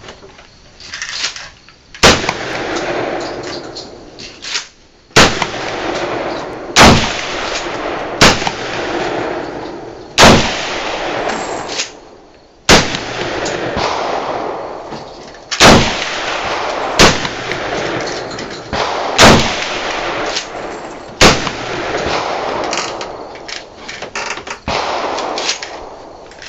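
Gunshots at an outdoor range: about ten single shots fired one at a time, one to three seconds apart. Each loud crack is followed by an echo that takes a second or two to die away.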